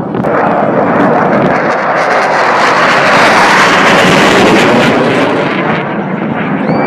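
Loud engine noise of an aircraft flying past, swelling to its loudest about three seconds in and then fading away.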